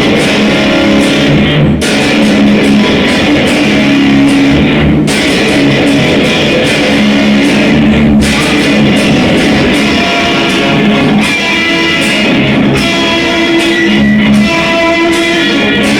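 Electric guitar played through tube (valve) effect circuits, loud and continuous, with the playing breaking and changing every two to three seconds.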